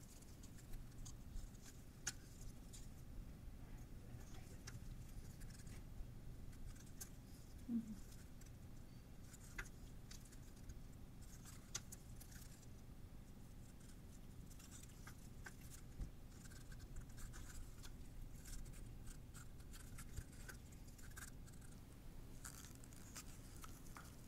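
Faint, scattered small clicks and taps of plastic stir sticks and paper cups being handled as acrylic paint is poured into a clear plastic cup, over a low steady room hum. One brief louder sound comes about eight seconds in.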